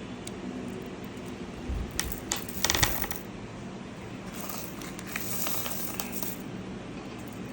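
Loose gemstones clinking against each other and a hard surface: a quick cluster of small clicks about two to three seconds in, then a softer shuffling sound as the stones shift.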